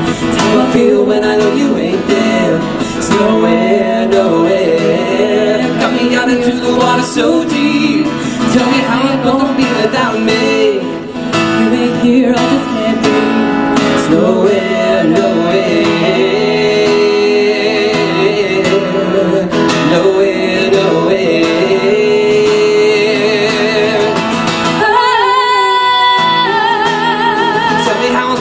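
Acoustic guitar strummed under a man and a woman singing a pop duet live into microphones. Near the end the guitar thins out while a high voice holds a long wavering note.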